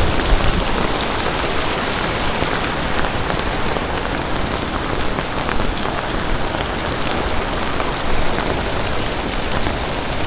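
Heavy downpour: steady rain falling and pattering on a ripstop nylon poncho hood close to the microphone.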